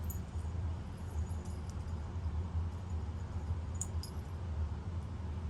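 A few faint, light clicks of small metal spinner lures being handled, over a steady low hum.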